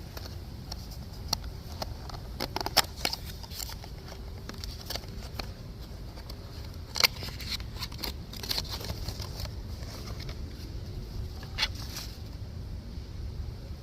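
Handling noises: scattered sharp clicks and short crackly rustles, the loudest about three and seven seconds in, over a steady low rumble.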